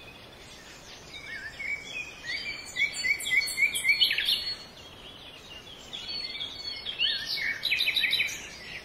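Birds chirping and calling: runs of short repeated notes building to a louder flurry, a lull of about a second and a half, then another bout near the end, over a faint hiss.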